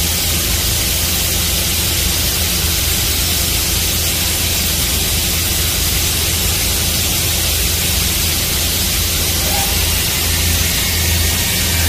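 Mazak VARIAXIS i-700 5-axis vertical machining center running, heard from inside its enclosure: a steady hiss with a low hum beneath it.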